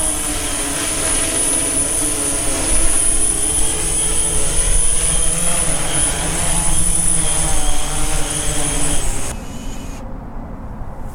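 DJI S900 hexacopter's rotors running with a steady hum and high whine as it comes down and lands, then cutting off about nine seconds in as the motors stop.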